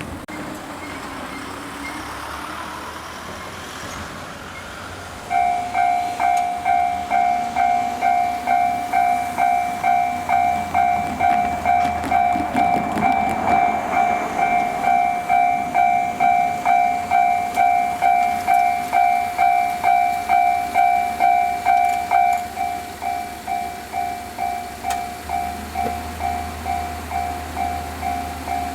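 Railway level crossing warning alarm starting about five seconds in: a rapid, even clanging of about two strikes a second. Some seventeen seconds later it becomes quieter and keeps ringing.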